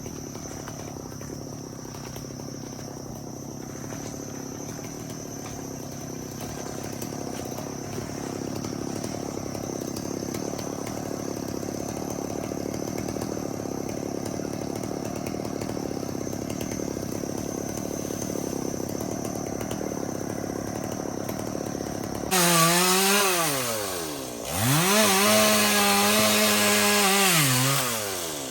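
Chainsaw starting to rev hard about three quarters of the way in, its pitch climbing and then sagging deeply twice, as when the chain is pushed into the wood. Before that, a steady low engine hum.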